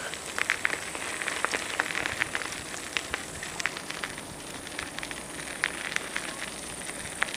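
Steady crackling hiss with many scattered sharp clicks.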